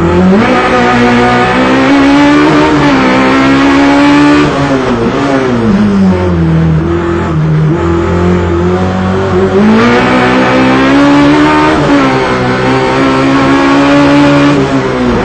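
Race car engine heard from inside the cockpit, revving hard as the car accelerates, shifts and brakes. The pitch climbs over the first few seconds, drops sharply about four and a half seconds in, stays low for a few seconds, then climbs again about ten seconds in.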